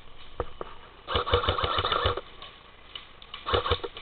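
Airsoft gun firing full-auto: a rapid rattling burst of about eight shots lasting a second, then a shorter burst of a few shots near the end.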